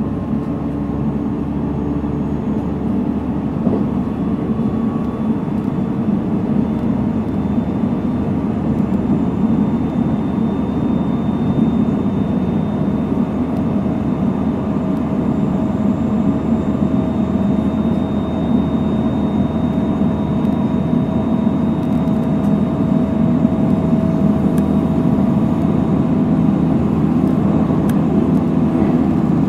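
Running sound inside a JR Central 313 series 300-subseries electric train under way: a steady rumble of wheels on rail, with faint motor and inverter tones that rise slowly in pitch as the train gathers speed.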